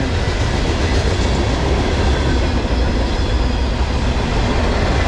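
Norfolk Southern manifest freight train's cars rolling past on the rails: a loud, steady rumble of wheels and cars.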